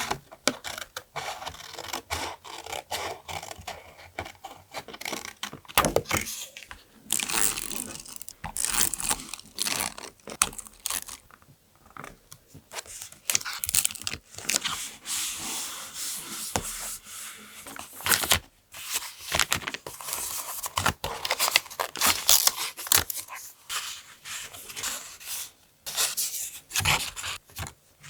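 Close-up paper being torn and handled: irregular ripping and rubbing strokes with scattered light taps.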